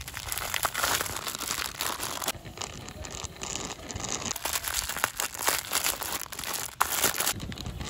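Clear plastic bags crinkling and rustling as toy autorickshaws are unwrapped by hand, with abrupt changes in the sound between short sections.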